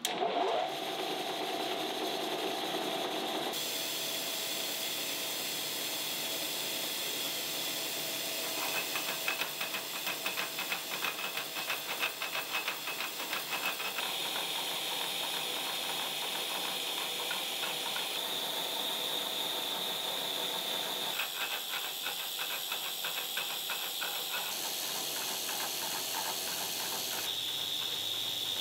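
Slitting saw on a milling machine cutting a slot into a metal block under a hissing coolant mist spray. The cut has a fast rattling chatter in stretches, and the sound changes abruptly several times.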